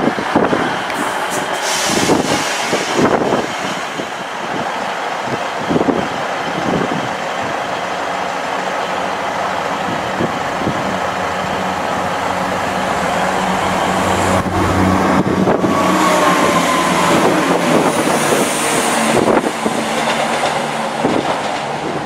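ScotRail Class 170 Turbostar diesel multiple units running through the station, with wind buffeting the microphone in the first few seconds. Later a steady diesel engine hum builds, and a falling whine follows as a train draws in.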